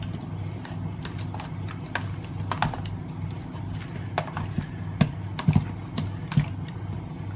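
Hands squishing and turning raw chicken thighs in a soy sauce marinade in a plastic tub: irregular wet squelches and light knocks against the container, over a steady low hum.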